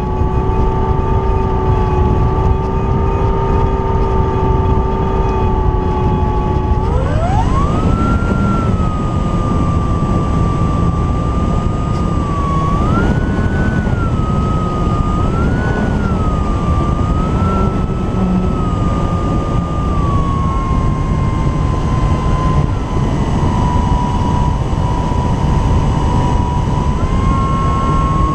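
Brushless electric motor and propeller of an E-flite Apprentice S 15e RC trainer plane whining in flight, with heavy wind rush over the microphone. The whine holds low, then about seven seconds in climbs sharply as the motor speeds up, wavers up and down a few times, and settles a little lower.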